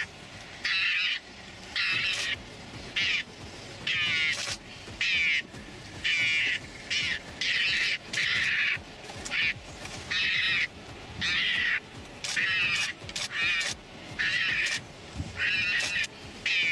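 A bird calling over and over: short calls, each about half a second long, repeated once or twice a second.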